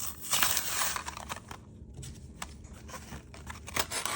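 Hot Wheels cardboard-and-plastic blister pack being torn open by hand: a burst of tearing about half a second in, then scattered crinkles and clicks of the packaging.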